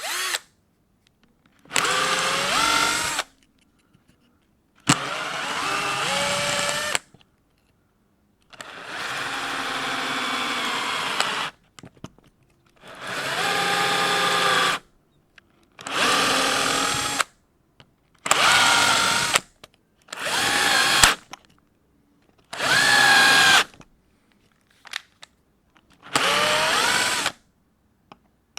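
Power drill driving self-tapping screws into timber: about ten separate runs of one to three seconds each with silences between, the motor's whine shifting in pitch within each run as a screw goes in.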